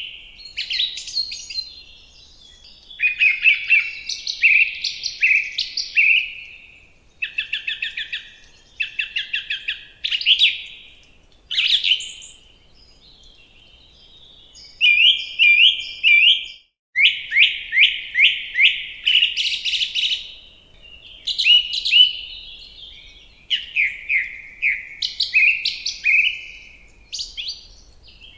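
Songbird singing: a run of varied phrases, each a quick series of repeated whistled notes that sweep downward in pitch, with short pauses between phrases.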